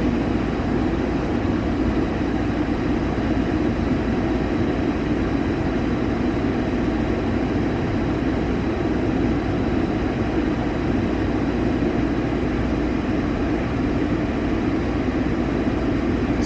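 Gas furnace running in heat mode: a steady, even rush of the blower and burners that does not change. The blower is on its medium-low heat speed, which the technician finds too slow, giving a temperature rise too high and tripping the high-limit switch.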